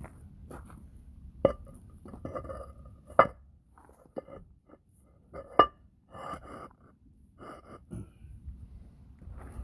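Hand tools knocking and clanking on metal during car suspension work: three sharp clanks with a short metallic ring, and lighter knocks and rattles between them.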